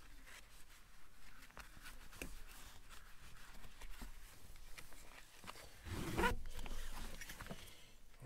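A red G-Force racing harness shoulder strap being handled and threaded around the harness bar and through its buckle. Nylon webbing rustles and the buckle hardware clicks faintly, with a louder rasp of strap sliding through about six seconds in.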